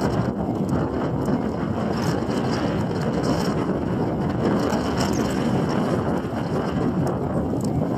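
Strong wind buffeting the microphone: a steady, low rushing noise with faint crackles.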